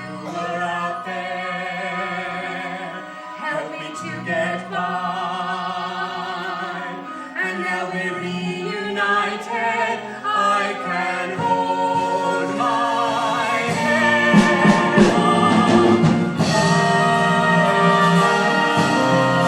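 Singing from a stage musical: voices with vibrato over an instrumental accompaniment, growing louder toward the end.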